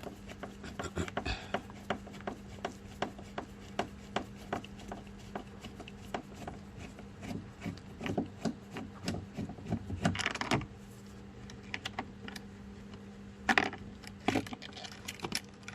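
A hand tool clicking and scraping on plastic door trim while a Torx screw is backed out: a stream of small irregular clicks, with louder scrapes about ten and thirteen seconds in, over a steady low hum.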